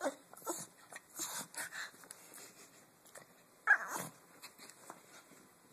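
Small dog giving a few short barks in play, the loudest and sharpest about two thirds of the way through.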